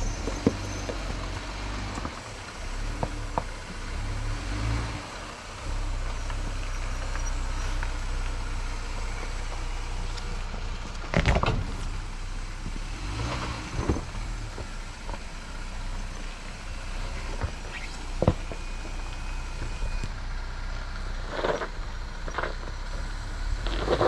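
Jeep engine running low and steady while the vehicle backs up and crawls at low speed, with scattered sharp knocks and clunks, the loudest about a third and three quarters of the way through.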